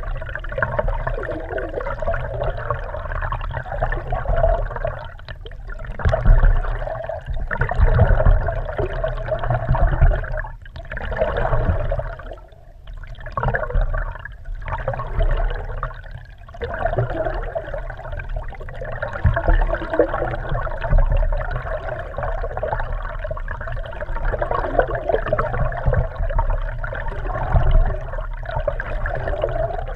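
Water rushing and gurgling around a GoPro Hero3's waterproof housing under a moving kayak, heard muffled through the case. It swells and eases in waves, with a few brief lulls about halfway through.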